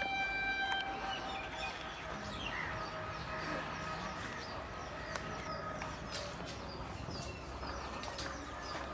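Small birds chirping and tweeting over a faint, even outdoor background.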